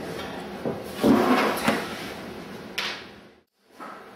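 A pencil scratches as it traces around a ceramic dinner plate laid on a wooden paddle blank, with the plate sliding and knocking on the wood. The sound stops abruptly a little after three seconds in, followed by faint room tone.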